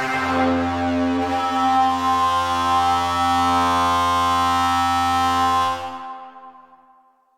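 Waldorf Pulse 2 analog synthesizer playing a preset: a sustained note over a low bass tone that shifts pitch just after the start. It is held for almost six seconds, then released and fades out over about a second and a half.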